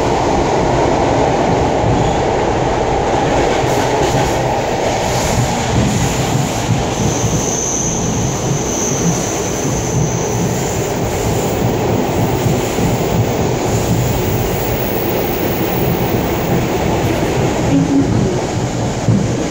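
Suburban electric train running, heard from inside the passenger car: a steady, loud rumble of wheels on the rails and the car's running gear. About seven seconds in, a thin high squeal rides over it for some three seconds.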